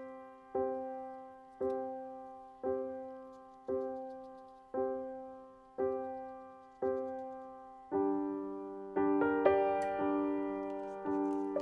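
Background piano music: the same chord struck about once a second and left to fade, with fuller chords and higher notes joining about eight seconds in.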